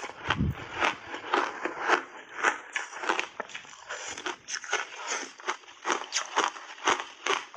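Biting and chewing purple crunchy block ice coated in heavy cream: a steady run of sharp, crisp crunches as the ice breaks between the teeth, with a dull low thump just at the start.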